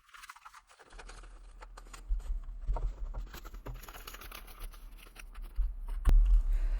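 Paper banknotes and envelopes being handled and pulled out, rustling and crinkling with small taps and a few dull thumps against a table.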